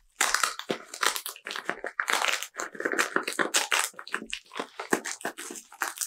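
Plastic bubble wrap crinkling and crackling as it is handled and unwrapped from a package: a dense run of sharp, irregular crackles.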